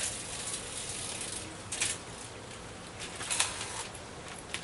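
Handling noise from unpacking a grow light fixture: a rustle, then a few short scraping and crinkling sounds, the loudest about three and a half seconds in.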